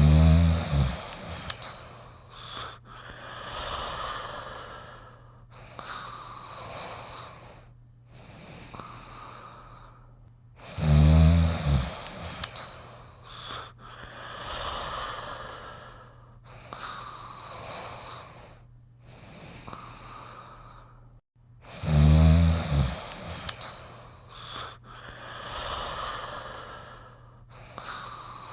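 Cartoon snoring: a loud, low snore three times, about eleven seconds apart, each followed by several softer wheezing breaths about every two seconds, repeating in the same pattern.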